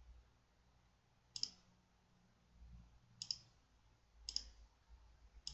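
Four faint, single computer mouse clicks, one to two seconds apart.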